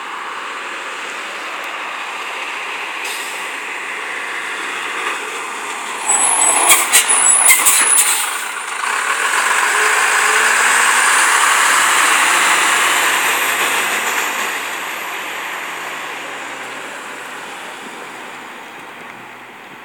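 A 1991 BMY M931A2 5-ton 6x6 military truck with an 8.3-litre Cummins turbo diesel drives past. Its engine and big tyres grow louder as it comes near, are loudest about ten to thirteen seconds in with a high whistle rising in pitch, then fade as it drives away. A cluster of sharp hissing bursts, typical of air brakes, comes about six to eight seconds in.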